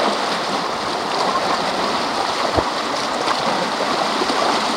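Fast, shallow river water rushing steadily around the legs of people wading upstream through it, with the splashing of their steps. A single soft thump about two and a half seconds in.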